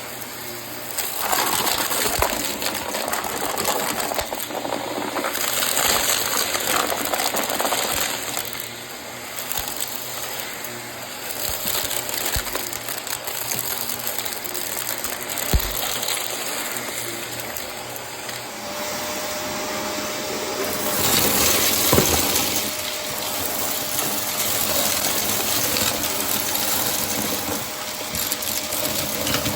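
Shark vacuum cleaner running while sucking up crunchy debris, a steady rush of suction dotted with crackling and rattling as bits are pulled in. Its level swells and dips as the head is pushed back and forth, and a faint steady whine comes in about two-thirds of the way through.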